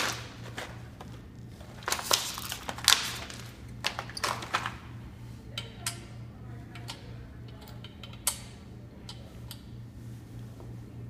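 Rustling and clicking as an air compressor accessory kit's packaging is opened and its small parts are handled: busy crinkling and clatter for the first few seconds, then scattered single clicks.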